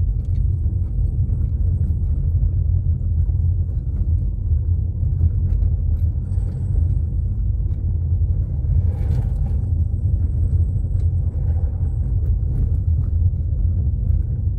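Car driving over a cobblestone street, a steady low rumble of the tyres and body on the stones.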